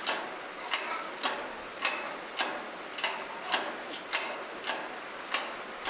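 Steady mechanical clicking from a gym exercise machine in use, about two sharp clicks a second in an even rhythm.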